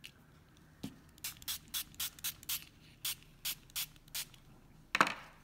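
Trigger spray bottle misting water onto sheer organza ribbon to wet it: about a dozen quick spritzes in runs, then a louder thump near the end.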